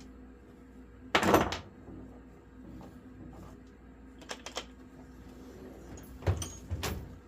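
Handling noises from tools and parts being worked with by hand: a loud clatter lasting about half a second, a second in, then a few light clicks, and two short knocks near the end.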